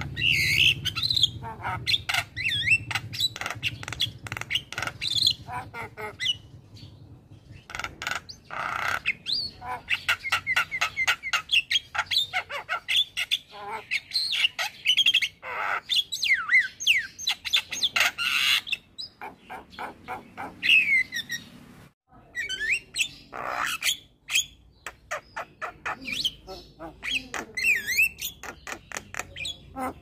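Male Javan myna singing a long, varied song: rapid clicking and harsh squawky chatter mixed with gliding whistles, with brief lulls about seven and twenty-two seconds in.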